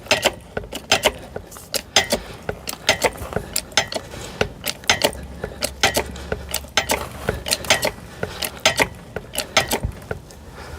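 Bottle jack of a hydraulic car ramp being pumped by hand, raising the ramp under a pickup's weight: a steady run of sharp metallic clicks and clanks, several a second.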